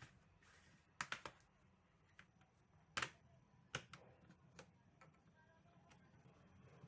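Sharp clicks and taps of small hard parts being handled while a laptop is taken apart: a quick run of three about a second in, then single louder clicks a little later, with fainter ticks between.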